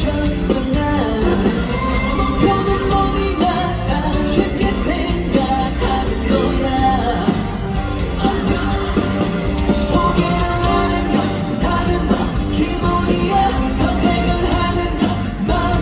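Upbeat pop-rock song with a male lead singer over a full band backing, played loud and steady through a concert sound system.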